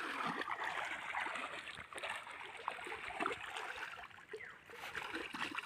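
Water sloshing and splashing around feet as people wade through a shallow, muddy stream: a steady watery wash with small irregular splashes.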